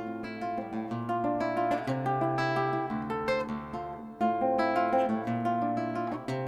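Solo acoustic guitar playing: plucked notes ringing over low bass notes that change every second or so.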